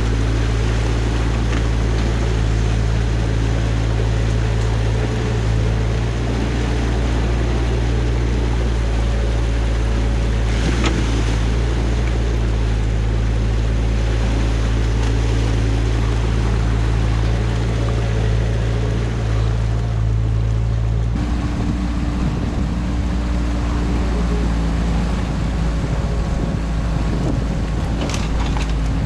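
Excavator's diesel engine running steadily with a deep drone; its note changes abruptly about two-thirds of the way through. Two brief knocks sound, one near the middle and one near the end.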